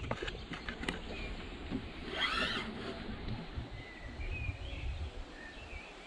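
Outdoor ambience: a fluctuating low wind rumble on the microphone, a few handling clicks in the first second, faint bird chirps, and a brief distant call about two seconds in.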